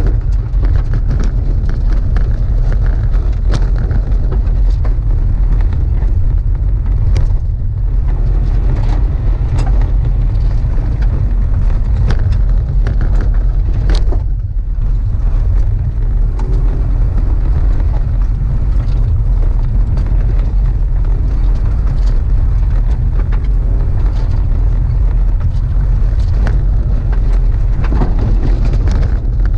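A car being driven hard on a grass-and-dirt autocross course, heard from a camera mounted on board: a loud, constant low rumble of engine and wind buffeting on the microphone, with scattered sharp ticks.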